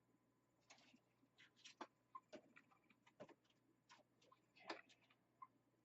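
Faint, irregular clicks and light taps of PC power-supply cables and parts being handled inside a computer case.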